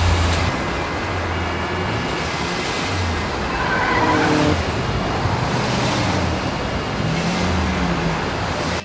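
Car sound effects: engines running and swelling in several surges over a constant wash of road and traffic noise.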